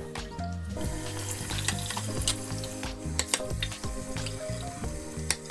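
Kitchen tap running into a sink as dishes are rinsed, with sharp clinks of crockery and a pan knocking, over soft background music. The water starts about a second in.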